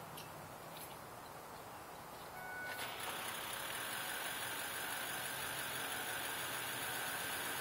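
2005 Ford F-250 being cranked to start. About two and a half seconds in, a click and a steady high tone come in, followed by a steady, louder engine noise that carries on to the end.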